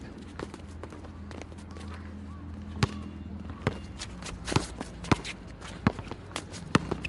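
Basketball dribbled on an outdoor court, a string of sharp bounces at an uneven pace, mostly from about three seconds in.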